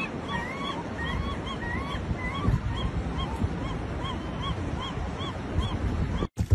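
Gull calling over and over, about three short rising-and-falling calls a second, with wind rumbling on the microphone; it cuts off suddenly near the end.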